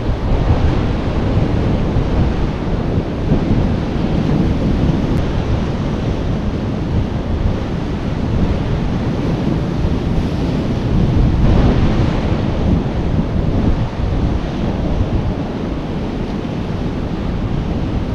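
Sea waves breaking and washing against shore rocks, with wind buffeting the microphone; one wave crashes louder about two-thirds of the way through.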